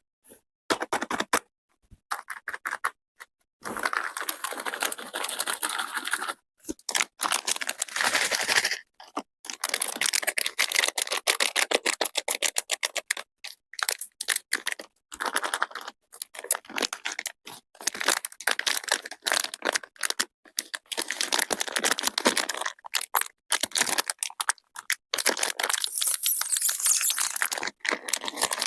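Crunchy chocolate crackling close to the microphone: dense runs of crisp clicks and crunches in bursts, broken by short silent gaps.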